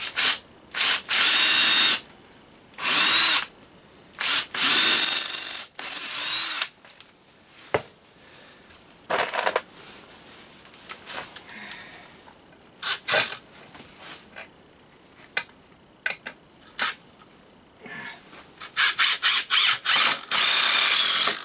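Ryobi cordless drill running in several short bursts with a rising whine, boring in at an angle to fasten the wooden legs of a 2x2 frame, with clicks of handling between bursts.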